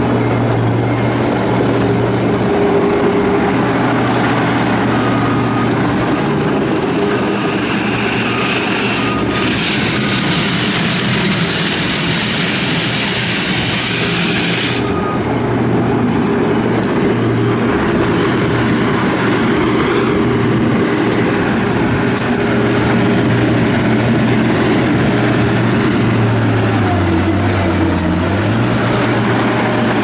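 2006 John Deere 328 skid steer's 82 hp turbo diesel running at steady working revs as the loader drives and works. A rushing hiss joins it from about ten to fifteen seconds in, and the engine pitch sags briefly near the end.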